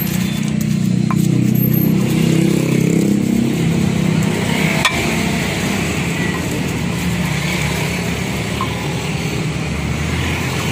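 Stone pestle grinding and scraping a wet chilli paste on a large stone grinding slab (cobek/ulekan), with one sharp knock about halfway through. A steady engine hum runs underneath.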